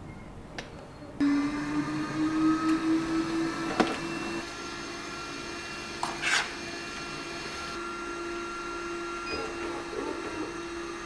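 A small electric motor is switched on about a second in and keeps running with a steady hum, its pitch rising slightly as it spins up. A sharp click comes near four seconds in, and a short hiss about six seconds in.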